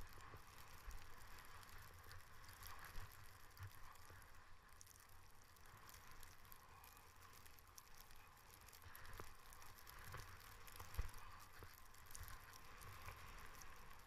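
Faint steady hiss of skis sliding over snow, with a low wind rumble and occasional soft knocks, one sharper knock late on.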